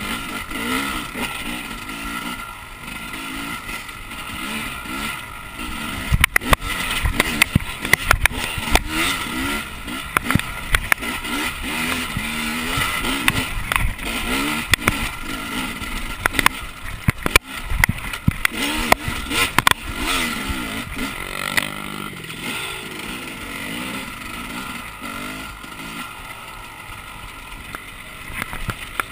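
A 2011 KTM 300 two-stroke single-cylinder dirt bike engine, heard from on board, revving up and down as the bike is ridden along a bush trail. Sharp knocks and rattles come through, most of them between about six and twenty seconds in.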